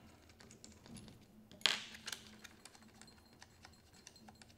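Faint small metallic clicks and ticks of the cheek-piece screws being turned out of an air rifle's stock by hand, with one sharper, louder click about a second and a half in.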